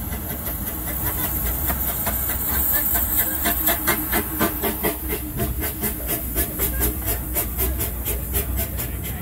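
Small 1961 Skooter locomotive pulling a train: a steady hiss with an even rhythmic beat of about three to four strokes a second.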